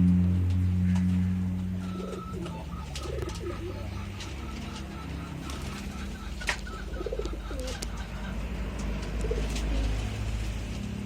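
Zebra doves (perkutut) cooing in short phrases, with a quick run of repeated high chirps through the middle. A steady low hum fades out after about two seconds, and there is one sharp click about six and a half seconds in.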